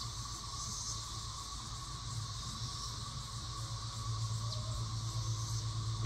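Steady high-pitched insect chorus over a low steady hum.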